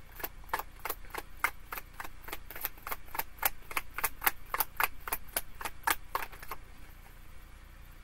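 Tarot cards being shuffled overhand, the cards slapping against each other in a quick run of sharp clicks about four a second, stopping about six and a half seconds in.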